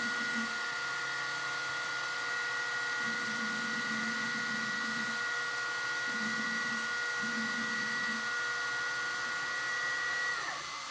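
Hydraulic pump of an RC excavator running with a steady whine, pumping the old, dirty hydraulic oil out through a hose into a jar. Near the end the whine slides down in pitch and stops as the pump shuts off.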